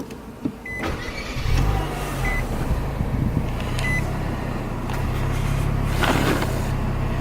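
2018 Nissan Kicks's 1.6-litre four-cylinder engine started by push button, catching about a second and a half in and then idling steadily. Over it, the car's warning chime sounds a short high beep about every second and a half for as long as the driver's door stands open.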